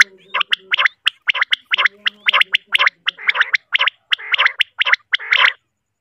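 Quail calling: a rapid run of short, harsh notes, about three a second, repeated without a break.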